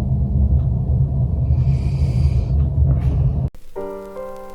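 Heavy low rumble that cuts off suddenly about three and a half seconds in, replaced by soft background music with held notes.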